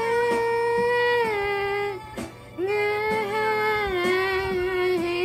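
A young woman singing long held notes. The first phrase is higher and lasts about two seconds. After a brief break, a second, lower note is held to the end.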